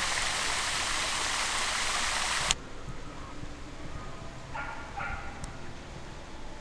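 Water splashing steadily from a tiled mosaic fountain, cutting off abruptly about two and a half seconds in. After that comes a much quieter open-air ambience with two faint short calls a little past the middle.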